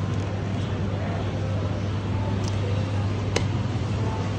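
Steady low hum and background noise of an indoor public space, with faint distant voices. A single sharp click about three and a half seconds in comes as a plastic coffee cup is handled in the vending machine's pickup slot.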